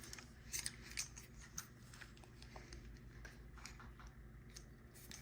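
Faint, scattered clicks and light taps of small objects being handled, over a faint steady low hum.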